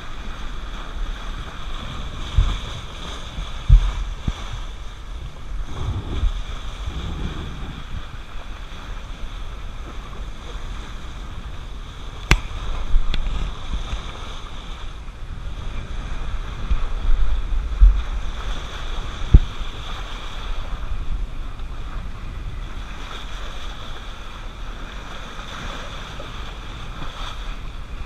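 Wind buffeting the microphone over the steady rush and splash of a sailboat's bow wave cutting through open sea, with a few sharp low thumps scattered through.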